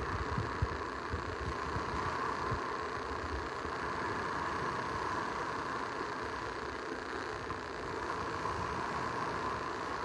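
Steady rushing of small surf breaking on the beach, heard through a rain-soaked microphone that makes it muffled and distorted, with a few low bumps in the first second.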